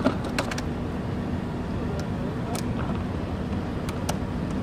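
Steady low drone of street traffic, with a few sharp clicks and taps of a plastic pet carrier being handled: a quick cluster at the start, then single clicks spread through the rest.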